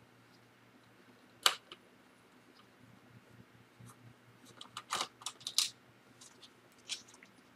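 Sharp clicks and light clatter of small laptop parts and a screwdriver being handled during disassembly: one sharp click about a second and a half in, then a quick run of several clicks around five seconds, and one more near the end.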